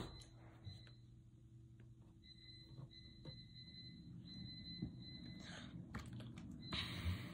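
Quiet room with a few faint clicks and a faint high steady whine that comes and goes. Near the end, soft handling noise as a plastic drink bottle is picked up and held.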